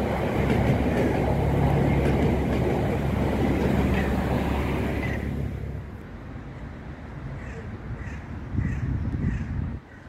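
South Western Railway electric multiple-unit train running along the tracks with a steady rumble and a low hum, fading away about six seconds in. Then a bird calls about five times in quick succession.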